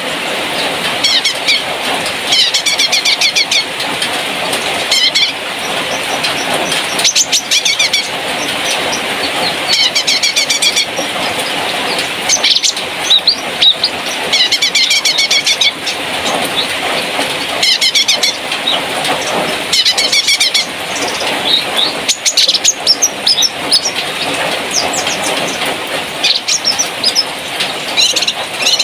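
Cucak kinoi songbird singing: quick chattering trilled phrases, repeated every second or two, over a steady hiss of background chirping.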